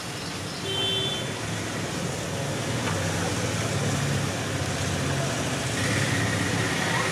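Steady background din like street traffic, with a brief high beep about a second in and a thin, steady whine starting near the end.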